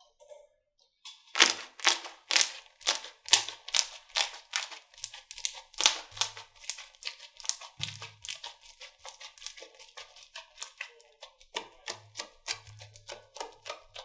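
Slime being squeezed and poked by hand, making a fast, uneven run of sticky clicking pops that starts about a second in.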